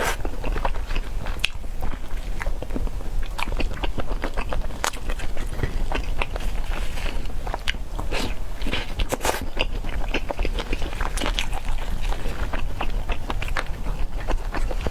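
Close-miked chewing and biting of spicy peanut chicken: a steady run of irregular crunchy clicks and mouth sounds, over a constant low hum.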